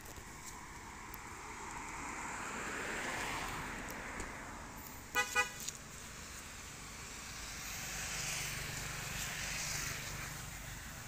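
Road traffic passing: a vehicle swells past and fades, a horn gives two short toots about five seconds in, and then another vehicle passes with a low rumble.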